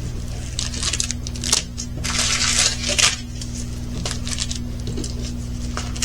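Rustling and crinkling of plastic-packaged diamond painting kits being handled, in irregular bursts that are densest about two to three seconds in, over a steady low hum.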